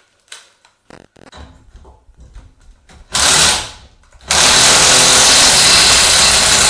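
Cordless impact wrench hammering on a front anti-roll bar drop link nut while locking pliers hold the link's stud from behind: a short burst about three seconds in, then a loud, continuous run of about three seconds from a little after four seconds in.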